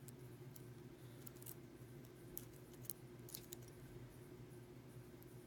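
Faint, scattered small metallic clicks and ticks from handling a padlock and its picking tools, a few of them about two to three seconds in, over a steady low hum.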